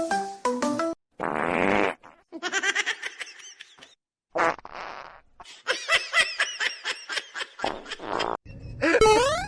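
Comedy sound effects: a short fart-like buzzing noise about a second in, followed by stretches of fast pulsing laughter, with rising whistle-like glides near the end.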